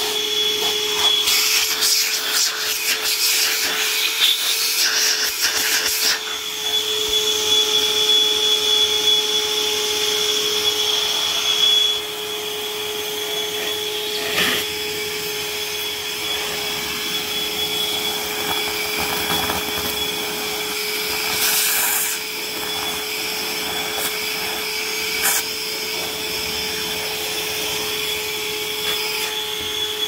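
Bosch 18-volt cordless wet/dry vacuum running with a steady whine, its upholstery nozzle rubbing and scraping over carpet for about the first twelve seconds. After that it runs more quietly, with a few brief knocks as the tool and hose are handled.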